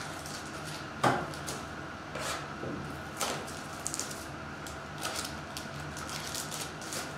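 Hands opening a cardboard trading-card mini box and handling the foil-wrapped pack from inside: scattered taps, scrapes and foil crinkles, the sharpest knock about a second in.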